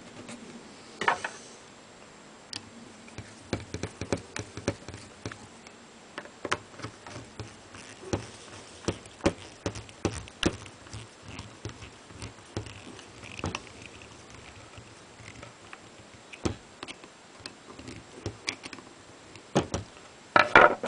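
Screwdriver driving screws back into a side-by-side shotgun's action: irregular small metallic clicks and taps, a few of them louder, as the screws are turned and the gun is handled on the bench.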